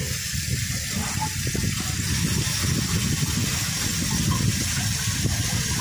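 Tap water running in a steady stream into the filler hole of a metal motorcycle fuel tank, filling it to flush dirt out of the tank.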